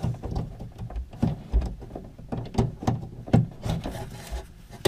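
Irregular clicks, taps and knocks of a hand working inside a 2017 Ford F-150's tailgate cavity, pinching a wiring harness connector and sliding it off the tailgate lock actuator, the harness and hand knocking against the sheet-metal panel. The sharpest knock comes a little after three seconds in.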